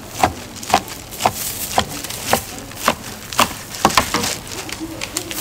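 A knife cutting gimbap rolls into slices on a wooden cutting board, each cut ending in a sharp knock, about two a second in a steady run.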